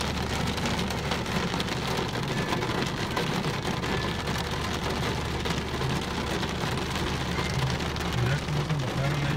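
Steady rain falling on a car's roof and windows, heard from inside the car, over a low steady hum from the car.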